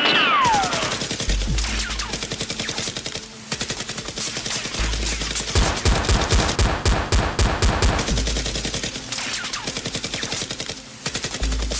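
Rapid automatic gunfire, dense shots with short lulls about three and a half seconds in and near the end.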